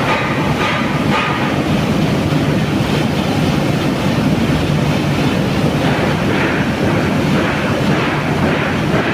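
Heavy construction machinery, an excavator's diesel engine, running steadily with a loud, even rumble.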